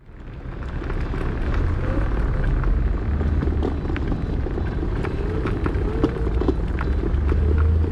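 Mercane MX60 electric scooter ride heard from the rider's camera: steady wind rumble and road noise, with a faint wavering whine and scattered light clicks. The sound fades in over the first second or so.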